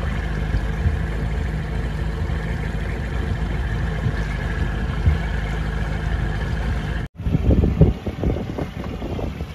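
Outboard motor running steadily as a small runabout boat cruises, a steady hum with water and wind noise. About seven seconds in the sound drops out briefly and is followed by an uneven, gusting rumble.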